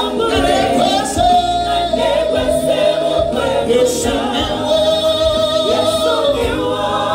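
Live gospel singing: a lead singer and backing vocalists sing long held notes with a wavering vibrato, over band accompaniment.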